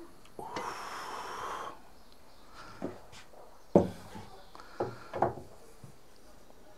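Cookware being handled: a hiss lasting just over a second, then a few sharp knocks and clanks, the loudest a little under four seconds in.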